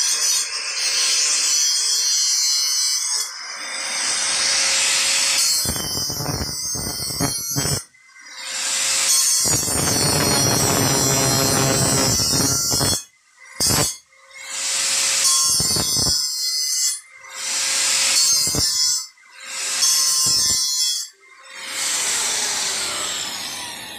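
Handheld electric angle grinder grinding the end of a steel pipe held in a vise. It runs in repeated bursts of a few seconds with brief pauses between, so the motor drops off and comes back up. The pipe end is being ground down so it fits the other tube.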